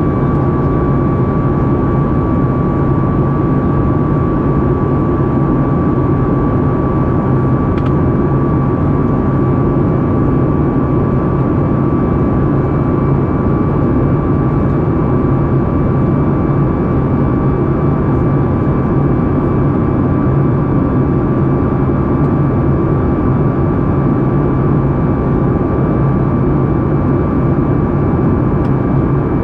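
Cabin roar of a Boeing 737 MAX 8 in climb, heard from a window seat by the wing: its CFM LEAP-1B turbofans give a steady low rumble with a steady high tone running over it.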